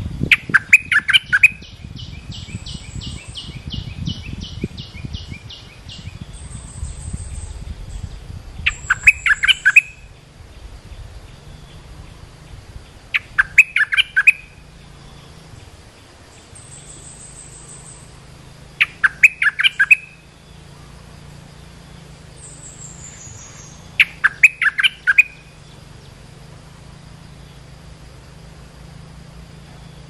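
Bulbul (merbah lekir) giving a loud lure call, a burst of five or six quick notes repeated about every five seconds. Between the bursts come thin high whistles, and for a few seconds near the start a fast even trill.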